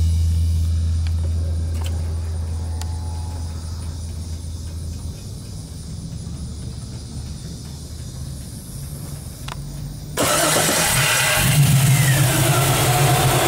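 A low steady hum fades out over the first several seconds. About ten seconds in, the Camaro's LS3 V8 with its Z06 cam starts up and runs, suddenly much louder.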